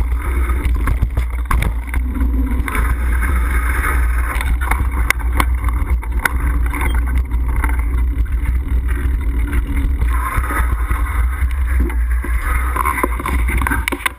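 Wind rumble buffeting the camera microphone mounted on a mountain bike. With it comes the rattle and knocking of the bike rolling at speed over a dirt trail and then paving stones. The noise drops away abruptly near the end as the bike comes to a stop.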